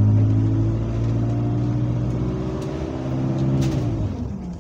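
Bus's diesel engine heard from inside the saloon, pulling steadily with a low drone that rises slowly in pitch. About four seconds in, the pitch drops away as the bus eases off.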